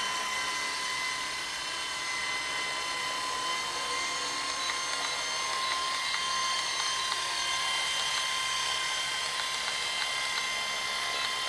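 Wltoys V912 fixed-pitch RC helicopter in flight: its brushless main-rotor motor and rotor make a steady high-pitched whine.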